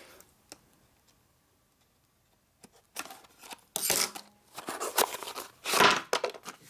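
Small cardboard parts box being cut and torn open with a pocketknife: scraping and tearing of cardboard in several short bursts, starting about two and a half seconds in.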